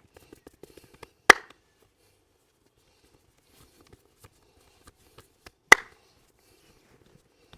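Two loud, sharp snaps during a hands-on massage, about four seconds apart, each with a short ringing tail, amid faint light taps and rubbing.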